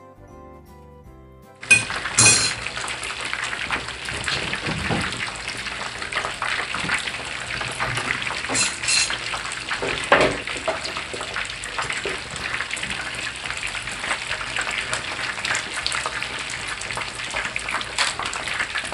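Battered chicken thighs deep-frying in oil over a turned-down gas flame: a steady, dense crackling sizzle. A short stretch of jingly music opens and cuts off abruptly, and a few clinks of metal tongs and a plate sound over the sizzle.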